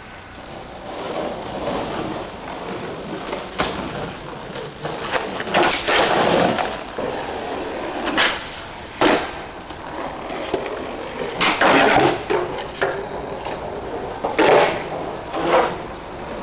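Skateboard wheels rolling on pavement, with a run of sharp wooden clacks and slaps as the board is popped and landed, about eight loud hits spread across the stretch.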